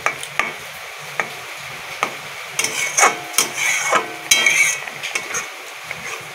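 A metal spatula scraping and knocking against a metal kadai while stirring grated coconut wetted with milk. It is an irregular run of scrapes and clinks, busiest and loudest in the middle.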